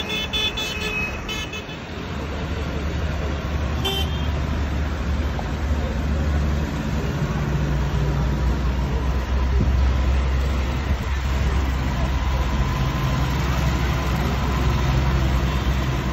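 Farm tractor's diesel engine running as the tractor drives past, growing louder as it comes close. High, pulsing beeps at the start, and a short toot about four seconds in.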